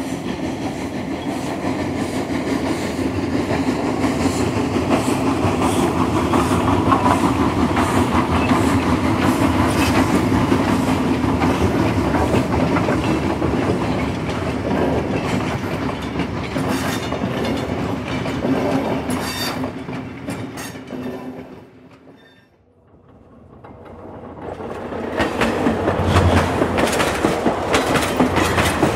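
Train wheels rolling on track, a steady rumble with a rapid clickety-clack over the rail joints. It fades nearly out about three quarters of the way through, then swells back in.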